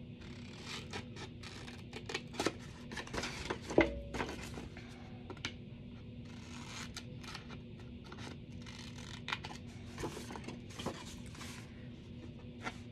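Scissors snipping into the corners of a thin designer-series-paper box, a scattered series of short cuts with paper rustling and scraping. A louder knock comes about four seconds in.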